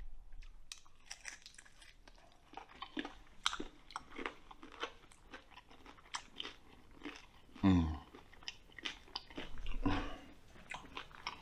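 A person chewing and biting roasted lamb-head meat up close: wet mouth clicks and light crunching. There is a brief falling hum from the eater about eight seconds in, and another about ten seconds in.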